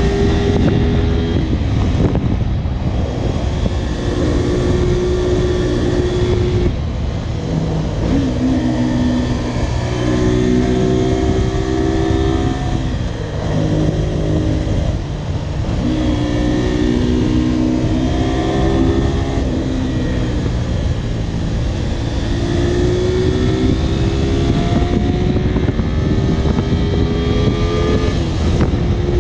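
Honda VTR250 V-twin engine running on the road, its pitch climbing and then dropping several times as the rider works the throttle and gears, over steady wind and road noise.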